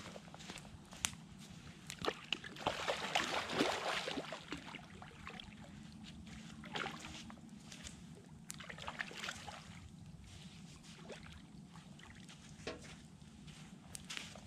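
Water sloshing and splashing at the lake's edge as a blue catfish is let back into the shallows, with scattered steps and small clicks on the shore. The loudest sloshing comes a couple of seconds in.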